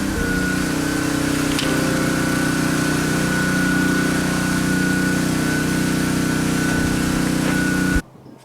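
Pressure washer running steadily: a motor drone with a steady high whine over the hiss of the spray. It cuts off abruptly near the end.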